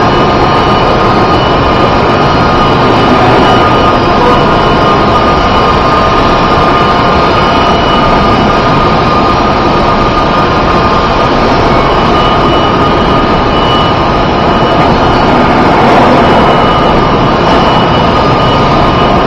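Loud, steady machinery drone with a few faint held tones through it, unchanging throughout.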